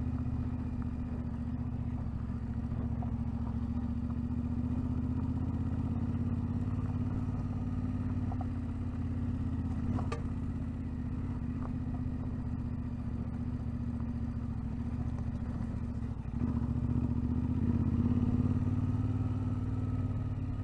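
Motorcycle engine running steadily on the move, its note holding even, then growing louder for a few seconds near the end as it pulls harder.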